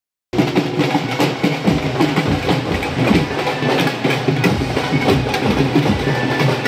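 Indian wedding brass band playing loudly: brass horns holding notes over steady drum beats, starting just after the beginning.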